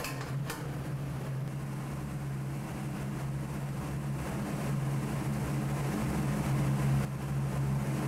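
Steady low roar of a commercial gas range burner heating a lidded wok of coarse salt. An aluminium lid clinks onto the wok at the start.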